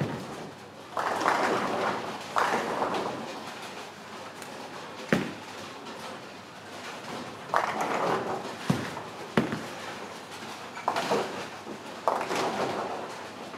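Ten-pin bowling balls striking pins: about five crashes of pins, each lasting about a second, with sharp single knocks of balls in between.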